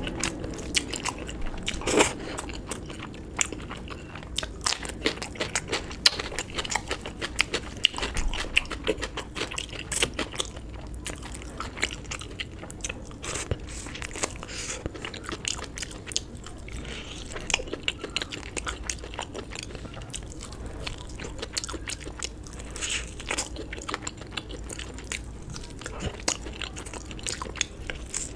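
A person eating close to the microphone: steady chewing and biting, with many irregular crunchy, smacking clicks.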